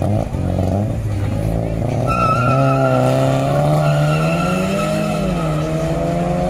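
Drag-launched cars accelerating hard away from the start line, one of them a VW Polo TDI diesel sending out black smoke, engine pitch climbing and falling through the gears. A high squeal joins about two seconds in.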